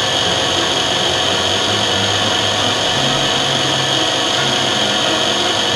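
Small spindle motor of a DM-200 lens drilling machine spinning a milling cutter with a steady high whine while it mills an eyeglass lens, with a lower hum underneath that shifts pitch a few times.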